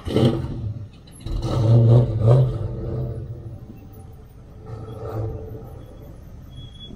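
A car engine revving in three bursts, the loudest about a second and a half in and a weaker one near five seconds.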